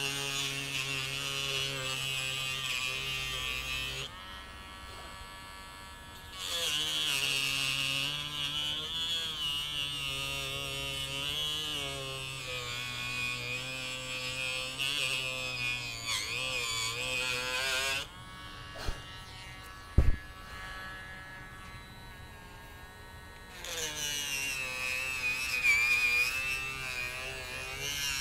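Small handheld rotary tool with a small disc cutter whining as it cuts screw channels into a wooden shotgun stock. It runs in three spells with two pauses, and its pitch wavers as the cutter bites. Two sharp knocks come in the second pause, the second one loud.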